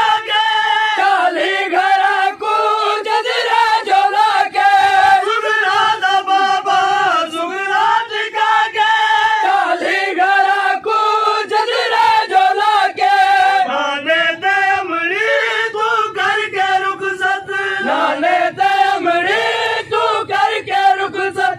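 A group of men chanting a noha, a Shia mourning lament for Imam Hussain, together with a lead reciter on a microphone, in a steady repeated melodic refrain.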